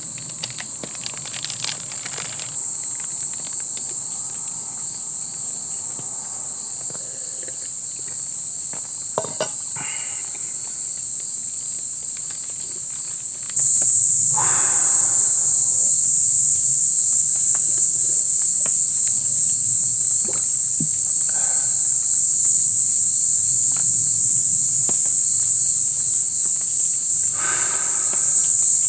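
A dense chorus of insects chirring in a steady high band, which suddenly gets much louder about halfway through. A few short animal calls stand out over it, one just after the jump and one near the end.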